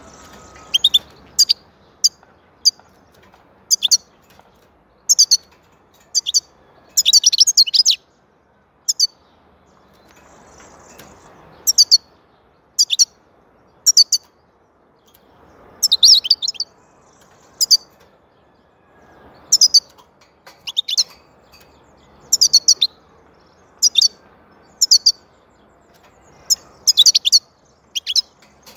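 European goldfinch singing: clusters of sharp, high twittering notes about once a second, broken by short pauses.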